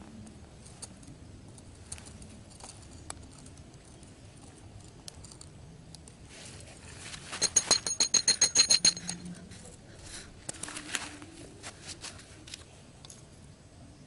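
A flat metal tool chopping rapidly into hard dirt: a burst of about ten quick, sharp strikes with a metallic ring a little past the middle, followed by a few softer knocks and handling clicks.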